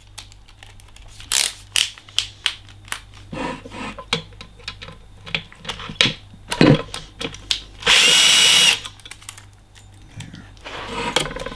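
Cordless power drill-driver spinning in one short burst of under a second, about eight seconds in, amid repeated clicks and knocks of hand tools and parts being handled.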